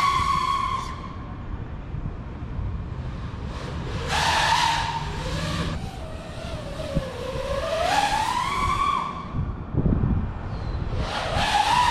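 FPV freestyle quadcopter's motors and propellers whining, the pitch rising and falling as the throttle is punched and eased, with louder surges about four, eight and eleven seconds in. A low rumble runs underneath.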